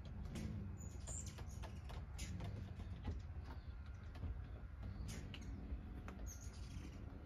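Hummingbirds giving short, high chip notes, several scattered through, over a low steady background rumble.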